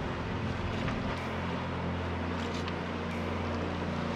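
A small boat running across water: a steady low motor hum with the rush of water and some wind noise.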